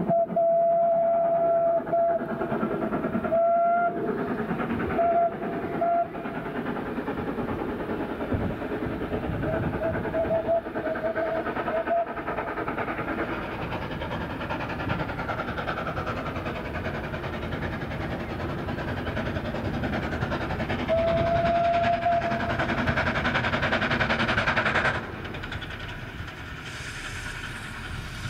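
Steam locomotive whistle, a steady pitched tone blown repeatedly: a long blast at the start, a few short toots, a wavering blast about a third of the way in, and another blast about three-quarters through. Under it is the continuous running noise of the approaching train, which eases a few seconds before the end.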